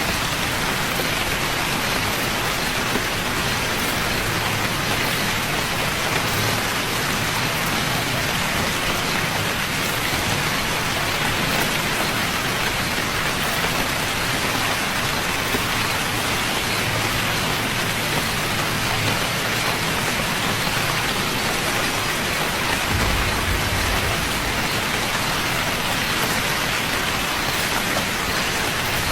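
Steady rain falling, an even dense hiss of drops on a surface, with a short low rumble about three-quarters of the way through.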